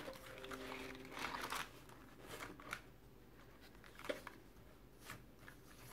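Vellum and card pages of a handmade scrapbook mini album rustling softly as they are handled and turned, in a few scattered crinkles.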